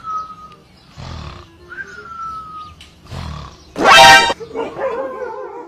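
A short, very loud roar about four seconds in, as a sleeping dog is startled awake, followed by a wavering cry.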